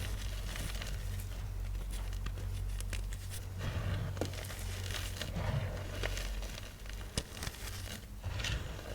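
Soft yellow-dyed gym chalk (magnesium carbonate) blocks being crushed, giving a run of irregular crunchy crackles and crumbles over a low steady hum.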